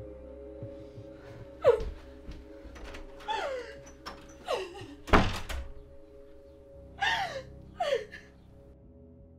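A woman sobbing in short cries that fall in pitch, five times over, with a door slamming shut about five seconds in, over soft sustained music.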